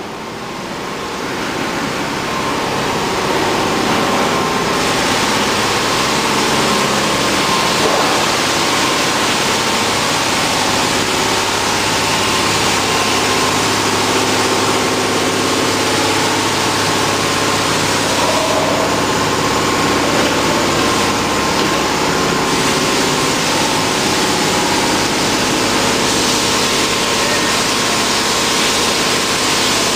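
Steady machine noise: a constant engine-like hum under loud hiss, shifting a little every few seconds.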